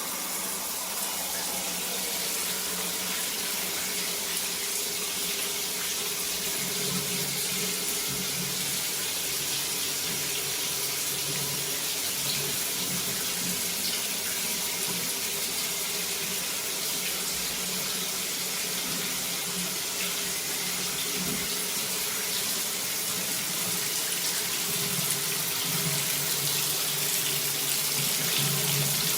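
Delta Raincan overhead rain shower head running, water pouring down steadily. The flow starts right at the beginning, with a faint tone sliding down in pitch over the first two seconds as it settles.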